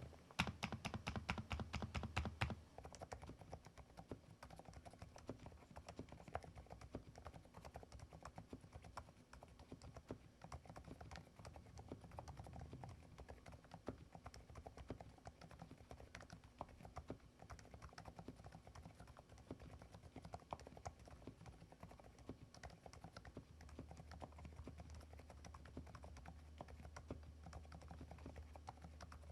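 Fast typing on mechanical keyboards. For about the first two and a half seconds there is a louder rapid run of keystrokes on an ABKO A108K with cherry blossom switches. Then comes steady, softer, muted typing on a Thinkway Toche F101 with Indigo Naturalis silent switches.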